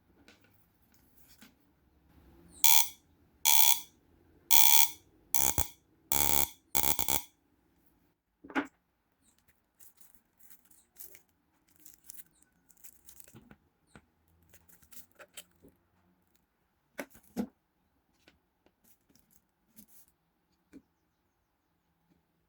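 Homemade electromagnetic pulse generator firing in six harsh buzzing bursts about a second apart, then one shorter burst and scattered faint clicks.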